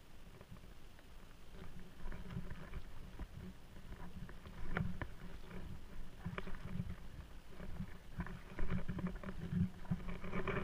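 Water sloshing and splashing with irregular knocks, from movement through a shallow flooded swamp channel, growing louder toward the end.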